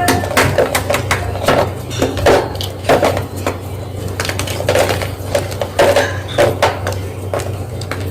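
Gym chalk crunching and crumbling, a run of irregular sharp crackles over a steady low hum.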